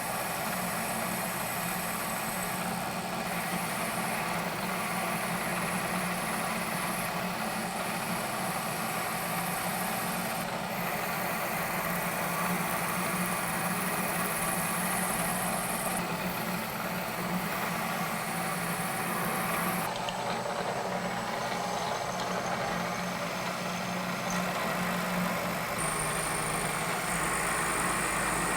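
Milling machine running, an end mill cutting a keyway into a steel shaft: a steady machine hum with a hissing cutting noise, changing abruptly in tone several times.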